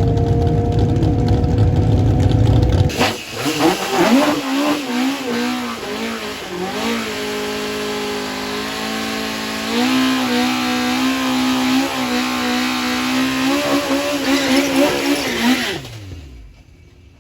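Race car engine at full throttle, its pitch slowly climbing. After an abrupt change about three seconds in, it runs hard with revs wavering, rising and stepping up and down. It dies away quickly near the end.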